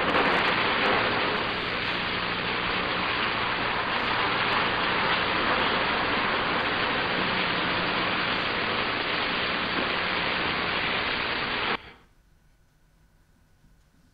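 A steady rushing hiss with a low hum under it, from the playback of a noisy recording that stops dead about twelve seconds in, leaving near silence.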